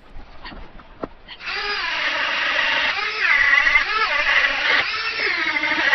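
Dremel rotary tool with a small wire brush, starting up about a second and a half in and running at high speed against a fibreglass motorhome roof. Its whine repeatedly dips and recovers in pitch as the brush bites, roughening the damaged gelcoat to give it texture for a fibreglass repair.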